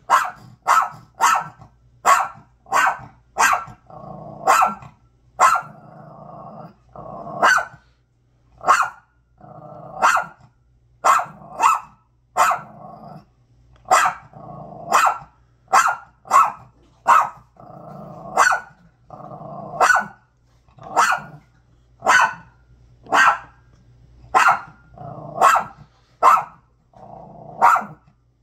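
Small Yorkshire terrier barking loud, sharp barks over and over, about one a second, with low growling between barks in several of the gaps.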